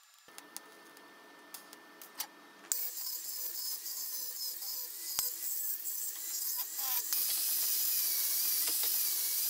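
Angle grinder grinding a weld on steel square tube: a loud, harsh hiss with a wavering whine that starts about two and a half seconds in and grows louder about seven seconds in. Before it come a few light metal clicks over a faint steady whine.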